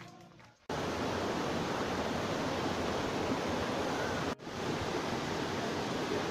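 Steady rushing noise of a waterfall and the rocky stream below it. It starts abruptly under a second in, drops out for an instant about four seconds in, then carries on.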